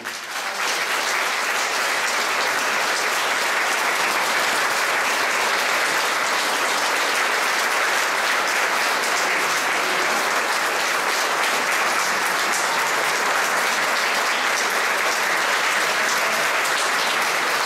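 Audience applauding: the clapping swells within the first second and then holds steady.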